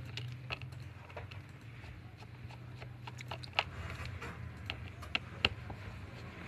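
Small, irregular clicks and taps of a precision screwdriver undoing the screws of a smartphone's inner frame, over a steady low hum. The sharpest clicks come about three and a half and five and a half seconds in.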